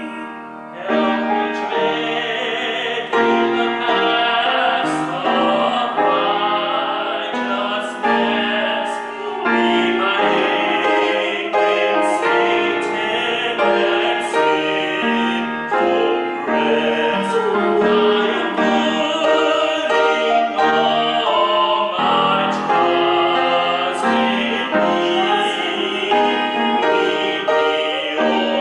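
Male voices singing with piano accompaniment in a church, the singing and playing going on without a break.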